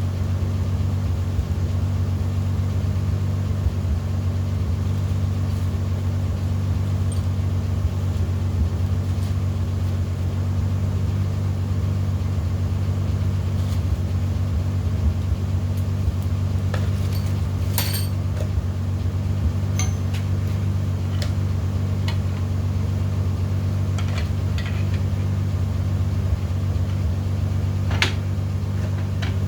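A steady low hum, with occasional light metallic clinks of hand tools working on an engine during a teardown; the sharpest clinks come about two-thirds of the way through and near the end.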